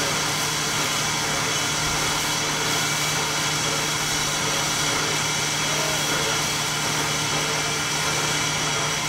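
Oil-burning R class 4-6-4 Hudson steam locomotive standing in steam: a steady, unbroken rush with a constant low hum and higher whining tones, unchanging throughout.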